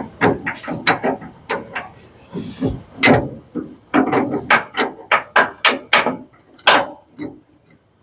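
Hammer striking metal in quick, uneven blows, about three a second, with a short break near the middle: hammering on a truck's leaf-spring shackle hardware.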